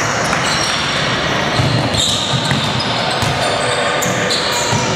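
Live basketball play in a sports hall: a ball bouncing on the wooden court amid players' sneakers squeaking.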